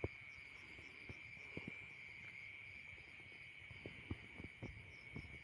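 Night insect chorus of crickets: a faint steady high drone with quicker pulsing chirps above it. Scattered soft low knocks and rustles sound close by, the sharpest right at the start.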